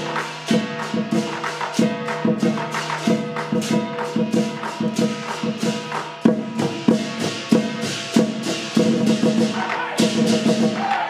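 Chinese lion dance music: drum, cymbals and gong playing a steady rhythm of repeated crashes.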